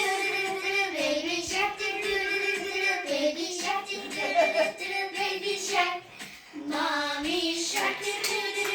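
A child singing a melody, breaking off briefly about six seconds in before going on.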